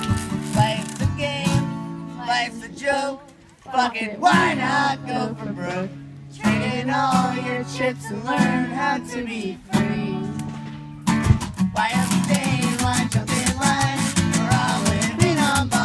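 Live acoustic folk-punk band playing: strummed acoustic guitar with washboard scraping, trumpet and singing. About three seconds in the band briefly drops out, continues sparsely under the voice, and comes back in full about eleven seconds in.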